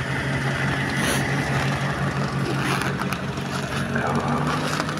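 Car engine idling steadily, warming up a minute after a hard cold start in deep frost. Short crunching sounds in the middle are steps in snow.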